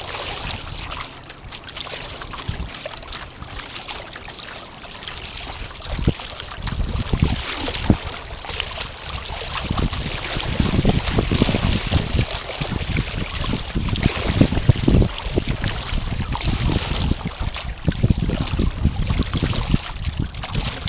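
Water washing and trickling along the hull of an 11 ft Snark sailboat under way, with wind buffeting the microphone, growing gustier about six seconds in.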